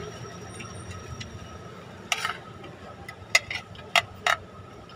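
Metal spoon scraping and clicking against a ceramic plate while eating: a short scrape about two seconds in, then three sharp clicks in the last two seconds, over a steady background hum.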